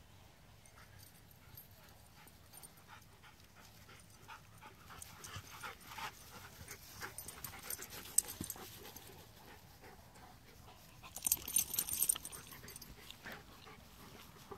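Golden retriever sniffing and snuffling with its nose at a gopher hole, in quick hissy bursts with panting. The loudest flurry of snuffling comes about three-quarters of the way through.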